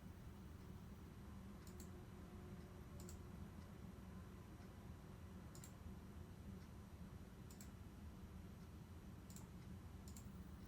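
Faint, sharp clicks, several in quick pairs, coming about every two seconds over a low steady hum.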